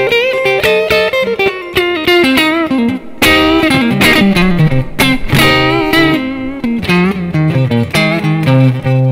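Tokai AST-52 Goldstar Sound electric guitar played on its neck single-coil pickup through a Yamaha THR10 amp set to crunch: a fast single-note lead with string bends and vibrato, mixed with a few chords.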